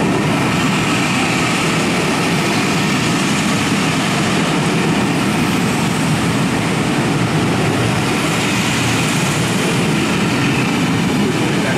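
Passenger coaches of a train rolling past close by at speed: a loud, steady rush of wheels on rail.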